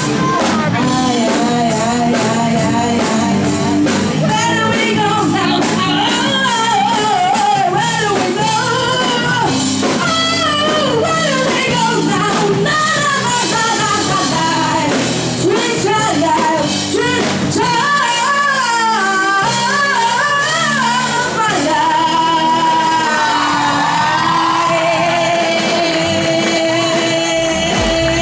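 Live rock band playing through PA speakers: a singer's voice over electric guitar and drums, ending on long held notes.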